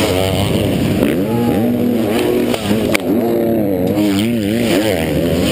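Motocross bike engines revving at close range, their pitch rising and falling again and again, with one sharp knock about three seconds in.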